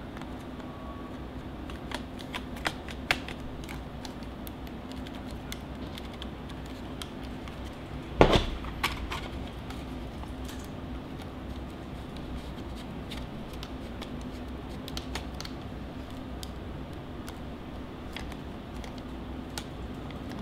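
Small hard-plastic LED video light panels (Andoer W49) being handled and fitted together by their shoe mounts: scattered clicks and ticks, three sharper ones a couple of seconds in and a loud knock with a short clatter about eight seconds in, over a steady low hum.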